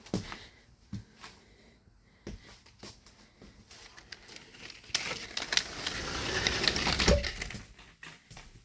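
Footsteps and light knocks, then a couple of seconds of scraping, rustling noise ending in a low thump about seven seconds in, as a door is worked while going back indoors.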